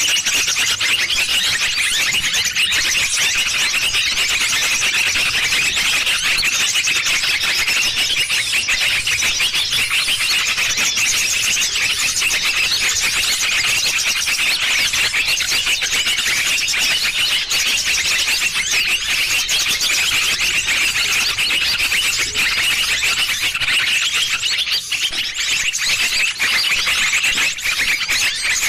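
Dense, unbroken chorus of many small birds chirping and twittering at high pitch, a lure recording played to draw small birds into a trap.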